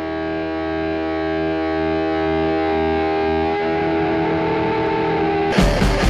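Noise rock: a held, distorted electric guitar chord rings and slowly swells in volume. About five and a half seconds in, the full band crashes in with loud drum hits and bass.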